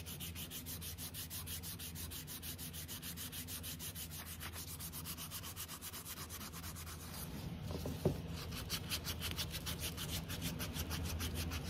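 Hand sanding a small carved wooden chair part with a folded sheet of sandpaper: quick, even back-and-forth rubbing strokes, taking the old finish off to prepare the wood for stain. A single sharp knock about eight seconds in.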